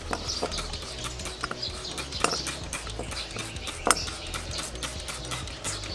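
Scattered clicks and light knocks of small metal carburetor parts being handled and set down, two of them sharper near the middle, over background music with a steady bass.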